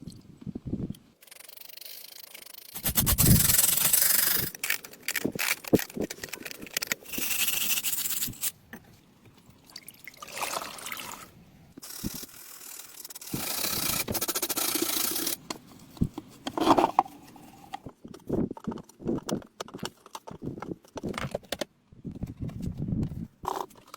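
Scrubbing and scraping on a rusted, oil-stained part, in several bursts of a few seconds each, with short clicks and knocks in between.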